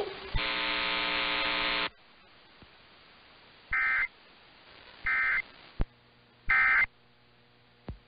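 AM radio audio from a web software-defined receiver: a loud harsh buzz for about a second and a half while the receiver is tuned up the AM band, then low hiss and three short screeching data bursts about a second and a half apart. The three bursts are the digital SAME tones of an Emergency Alert System message, typical of its end-of-message code.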